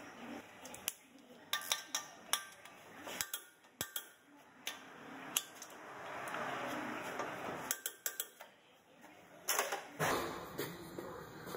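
Metal hand tools and parts clinking and clicking in short, scattered knocks while a truck's front brake and hub are worked on, with a few seconds of steady scraping or rustling noise in the middle.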